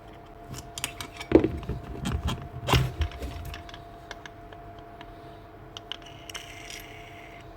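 Clicks and knocks of a dead Milwaukee angle grinder being handled and worked on, a cluster of sharp taps in the first few seconds, then quieter handling noise.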